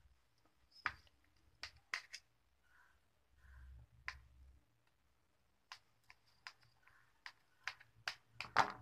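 Knife blade clicking and tapping against a steel tray while cutting through a slab of carrot barfi: irregular sharp clicks, the loudest a little before the end.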